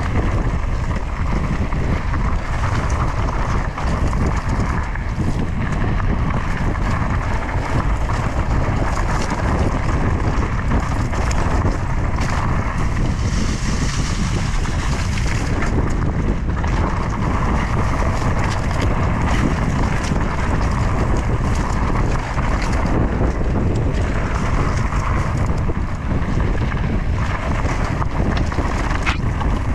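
Mountain bike being ridden along a dirt trail: wind buffeting the camera's microphone over a steady low rumble from the tyres, with frequent short rattles and knocks from the bike.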